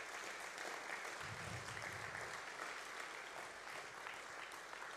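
A congregation applauding: many people clapping together in a steady patter.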